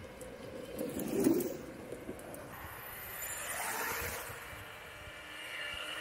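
Off-road electric skateboard rolling over rough ground, a rushing noise that swells and fades twice.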